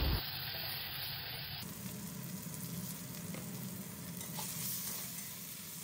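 Onion, tomato and whole spices frying in hot oil in a kadai: a steady sizzle as the pan is stirred with a metal spatula.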